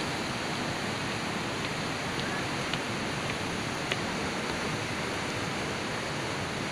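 Fast mountain river rushing over rocks: a steady, even rush of water, with a faint click about four seconds in.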